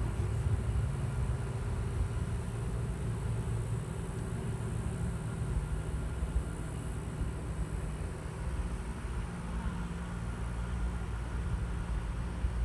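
Low, steady rumble of an Atlas V rocket in flight, heard from a distance.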